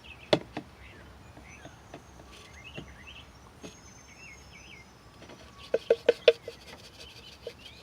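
A net and plastic container being handled at a water-filled bucket, giving sharp knocks and clicks: one just after the start and a quick cluster of about five around six seconds in. Faint bird chirps sound behind them.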